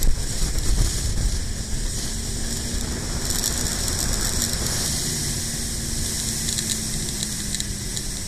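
Motorcycle riding along at road speed: wind rushing and buffeting over the on-board camera microphone, with the engine's steady hum underneath. The buffeting is heaviest in the first second or so, and the hiss brightens from about three seconds in.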